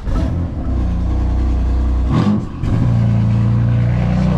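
BMW M4's twin-turbo inline-six starting up from cold and running at a fast, loud idle, with a short blip and dip in the engine note about two seconds in before it settles.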